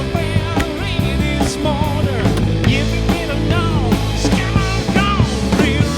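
Rock music with a singing voice over steady bass and guitar.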